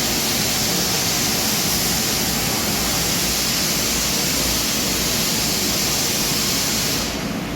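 H860B industrial vacuum cleaner running with a steady rushing hiss of air. The highest part of the hiss drops away about seven seconds in.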